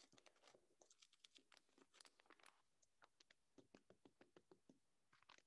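Faint, irregular crackling and clicking of a thin clear plastic cup being squeezed and handled as a compressed model of coal is worked out of it.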